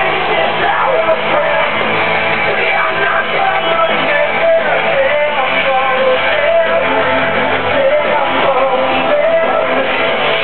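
Loud, steady rock music with guitar.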